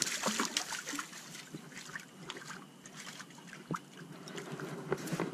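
Faint water sloshing and trickling with scattered, irregular light clicks and taps from fishing rod and gear handling, as a hooked shad is brought in and landed.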